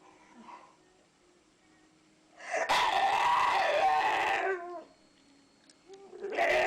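A pet animal's loud, harsh cry lasting about two seconds, starting a little before the middle, with a shorter pitched call starting near the end.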